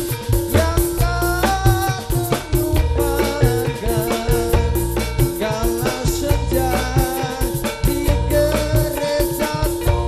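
Live Javanese dance-troupe music: drums keeping a fast, steady beat under held melodic tones, played without a break.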